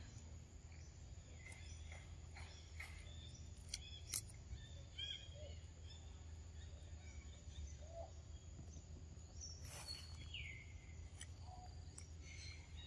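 Quiet outdoor forest ambience with a steady low hum, scattered small clicks and ticks, and a few short bird chirps, one sliding downward about two-thirds of the way through.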